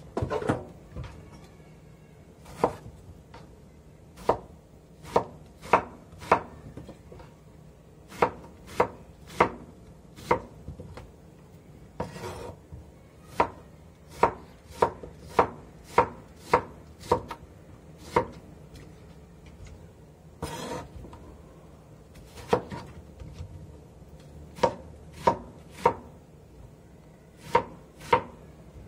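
Kitchen knife chopping a peeled vegetable into chunks on a wooden cutting board: sharp knocks of the blade against the board, uneven in pace with quick runs and short pauses, and a couple of brief scrapes partway through.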